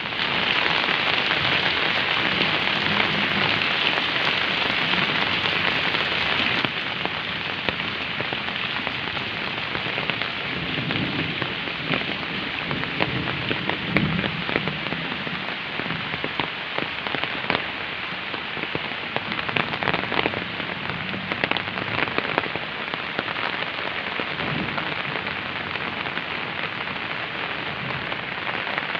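Rain pouring down steadily, a dense even hiss with scattered drip ticks. It drops slightly in level about six and a half seconds in.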